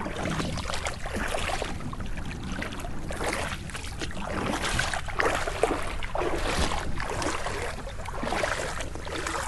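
Feet wading through shallow water over a rocky bottom, the water sloshing and swishing with each step about once a second, over a steady low rumble of wind on the microphone.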